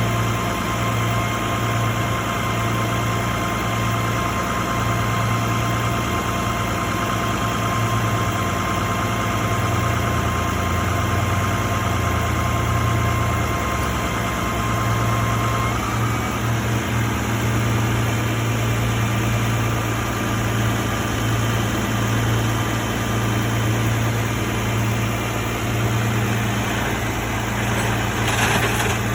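Car engine idling with a steady low hum, under a faint steady whine that stops about halfway through. A brief hiss near the end.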